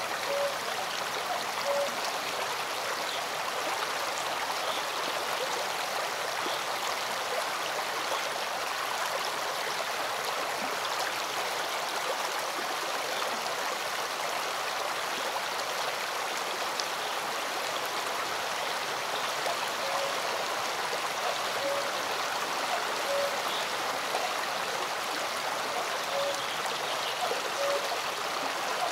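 Forest stream running over rocks in a steady, even rush. A short soft note repeats about every second and a half near the start and again in the last third.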